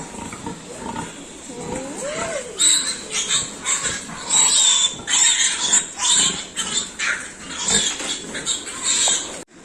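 Pigs squealing: loud, shrill squeals repeated in quick succession from about two and a half seconds in, quieter before that.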